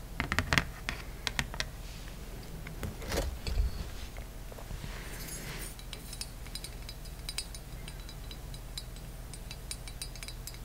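Close-miked handling sounds: sharp crinkles and taps of a printed paper leaflet in the first few seconds and a brief rustle, then fainter light clicks and ticks as a small poppy-flower ornament is turned in the fingers.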